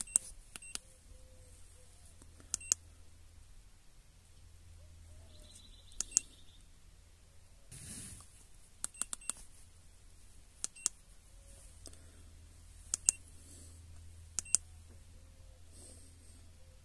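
Button presses on an Ancel FX2000 handheld OBD2 scan tool: short sharp clicks, each with a brief high beep, mostly in pairs or threes every one to three seconds as menus are stepped through.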